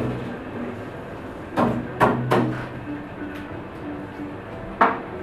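Double bass played percussively: sharp knocks or slaps about a second and a half in, two more in quick succession, and a last one near the end, with a low bass note ringing under the first strikes.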